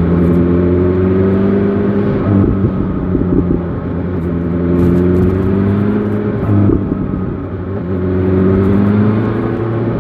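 BMW S1000 XR motorcycle engine pulling through the revs three times, its pitch climbing and then falling back between pulls.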